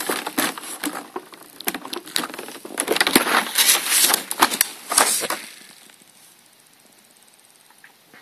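Handling noise: dense crackling and clicking from the phone being moved about and from the clear plastic packaging of the snap circuits kit. It stops about five and a half seconds in.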